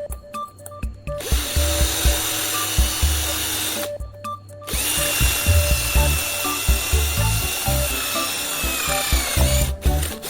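A handheld power tool's motor runs in two bursts, the first about three seconds long and the second about five, with a steady whine that drops a little in pitch as it winds down near the end. Background music with a steady beat plays underneath.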